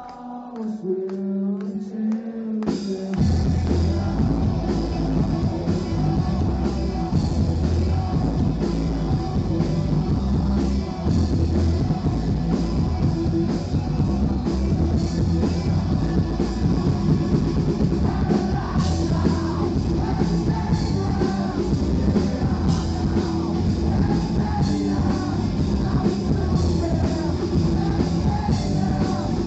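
Live grunge rock band playing: distorted electric guitar, bass and drum kit with a singing voice. The first three seconds are quieter, with a held, sliding note, then the full band comes in loud and stays loud.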